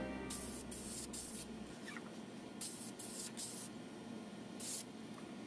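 Paint being sprayed in short bursts: about seven brief hisses, three in the first second and a half, three more close together around three seconds in, and one near the end.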